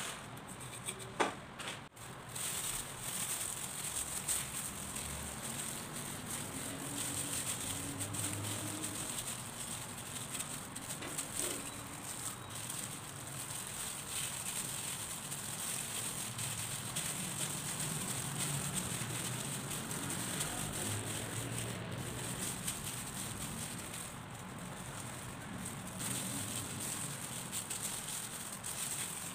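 Thin disposable plastic gloves crinkling and rustling as gloved hands squeeze and shape mashed potato around carrot sticks, a continuous crackly rustle with soft squishing.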